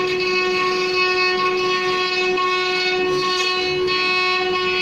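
Mini CNC router's spindle motor running at constant speed, a steady high-pitched whine that holds one pitch.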